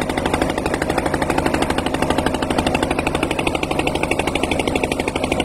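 Boat engine running steadily with a rapid, even chugging of about ten beats a second.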